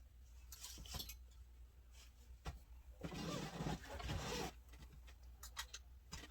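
Faint handling noises from a ring light and its stand being moved into place: a few scattered clicks and knocks, with a stretch of rustling in the middle.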